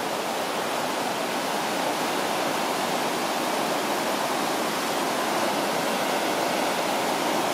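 River water rushing over rocky waterfall cascades: a dense, even rush that holds steady.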